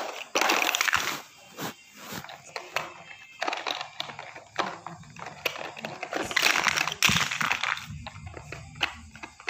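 Plastic toy building blocks clattering and scraping against a cardboard toy dump truck's bed as they are rummaged and lifted out by hand, in three bursts with small knocks between them.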